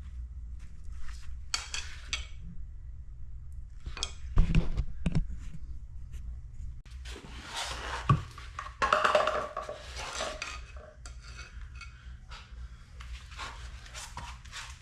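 Clanking and scraping of a hand tool working rusty sheet steel as the old floorpan's flange is peeled back, with sharper knocks about four and a half and eight seconds in, over a steady low hum.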